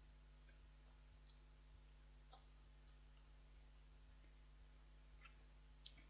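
Near silence with a faint steady hum and a few small, sharp clicks spread through, the loudest a little before the end: quiet eating sounds from a man eating a noodle meal with a fork.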